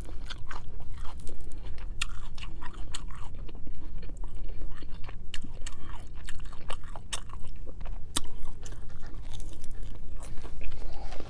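Close-up chewing of a mouthful of romaine lettuce wrap, wet chewing broken by scattered crisp crunches.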